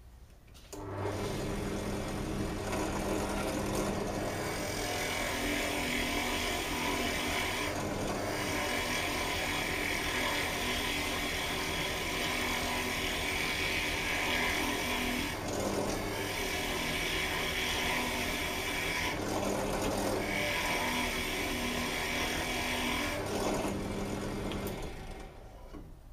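Benchtop drill press switched on about a second in, its motor humming steadily while the bit bores into a thick block of timber. The cutting adds a harsher, higher sound in about four stretches. The press is switched off near the end and its motor winds down.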